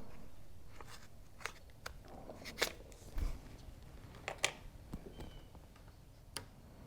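Faint handling noises: a scattered series of light clicks and crinkles, irregularly spaced, with a few sharper ones in the middle.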